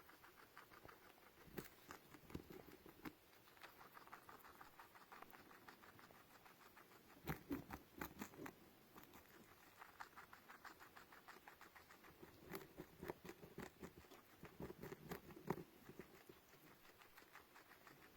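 Faint, irregular pattering and clicking from a small pet moving about, with a few louder clicks now and then.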